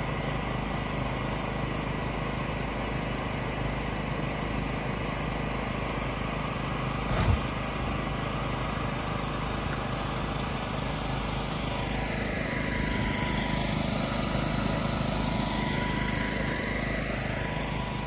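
Inflatable landing pad's air blower running with a steady hum. A single thud about seven seconds in as the parachutist lands on the pad, and a sweeping rise and fall in pitch in the last few seconds.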